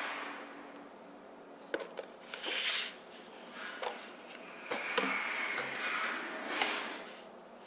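Raw yardlong beans rustling as hands gather and stir them in a plastic bowl, in a few noisy swells with several sharp clicks and taps between them.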